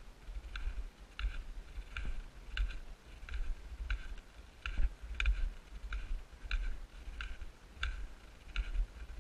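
Footsteps in packed snow at a steady walking pace: a short, crisp crunch about every two-thirds of a second, with a low rumble underneath.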